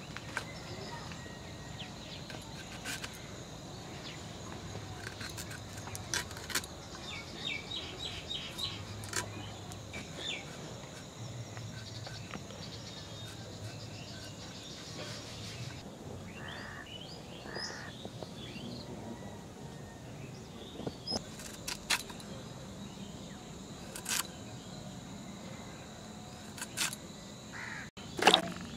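Scattered sharp clicks and scrapes of a blade cutting and peeling kohlrabi, with birds chirping over a steady outdoor background. A louder knock comes near the end.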